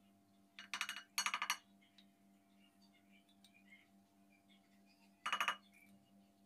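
A spoon tapping against a glass mixing bowl in quick runs of ringing clinks, shaking ground spices onto chopped parsley: two runs about a second in and one more near the end, over a faint steady hum.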